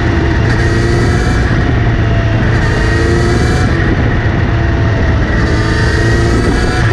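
Kawasaki Z900RS inline-four motorcycle running in gear, its engine pitch drifting up and down, with a whirring the owner traces to the front sprocket area. The noise began after the chain was cleaned and relubed, although the chain is clean and its tension checks out.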